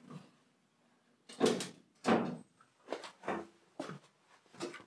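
Carpet pieces and felt padding being handled in a car's boot: a string of about six short rustling, sliding knocks, the loudest about a second and a half in.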